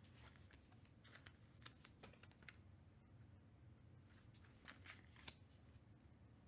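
Near silence with faint light clicks and taps of trading cards being handled, in two short clusters about a second in and about four seconds in.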